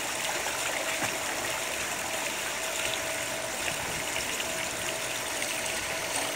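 Steady rush and trickle of pool water with light splashing as a child swims and kicks with fins, over a faint steady hum.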